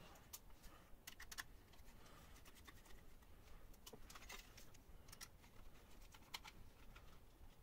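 Faint, scattered small clicks and ticks of a Phillips screwdriver and small screws being worked out of the thin metal mounting bracket of a slim laptop-style optical drive, with the drive handled in between.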